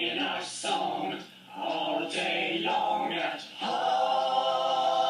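Voices singing without accompaniment in short sung phrases, ending on a long held note for about the last second and a half.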